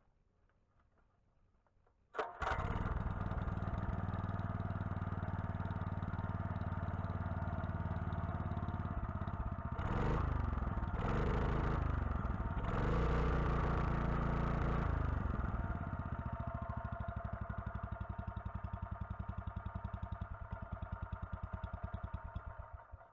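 Robin EY18-3B single-cylinder four-stroke engine catching about two seconds in and running steadily, now sparking again after its ignition points were repaired. It is revved up and down several times in the middle, then settles, slows to separate firing beats and stops near the end.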